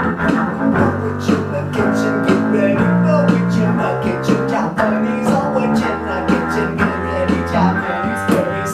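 Upright double bass plucked pizzicato, playing a bass line of held low notes over other instruments with a steady ticking beat.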